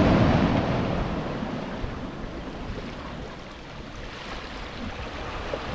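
Sea waves surging against breakwater rocks, with wind on the microphone; the wash is loudest at the start and eases off over the next few seconds.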